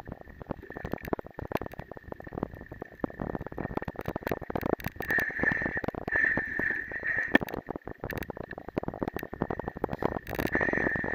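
Mountain bike rattling and jolting over a rough, muddy forest track, its tyres squelching through wet mud and puddles, with a thin high whine that swells twice.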